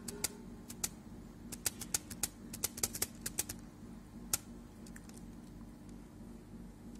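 A run of sharp computer mouse clicks as the scroll arrow is clicked repeatedly: a couple of single clicks, then a quick irregular flurry from about one and a half to three and a half seconds in, and one last click a second later. A low steady hum runs underneath.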